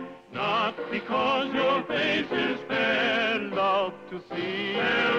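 Music: a song, the singer's voice wavering with vibrato in short phrases.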